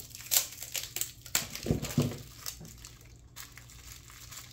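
Small clear plastic parts bag being handled and opened: crinkling rustles and a few sharp clicks, busiest in the first two seconds and quieter near the end.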